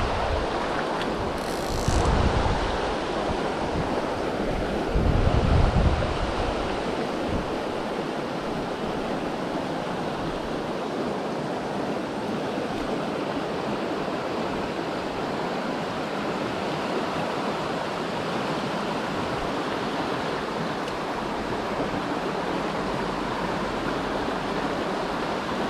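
River water rushing steadily, with a couple of low rumbles in the first six seconds.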